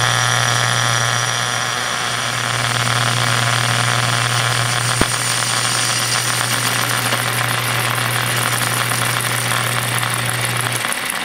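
Metal lathe running while a carbide-insert tool turns down the outside diameter of a metal pulley blank: a steady motor hum under a hiss of cutting noise. One sharp click about five seconds in, and the motor cuts off near the end.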